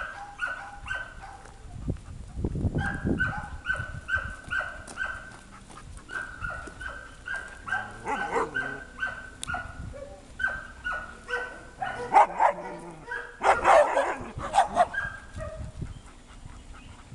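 Dogs in shelter kennels barking and yelping, a high-pitched yap repeating several times a second in steady runs, with louder, rougher bursts near the end.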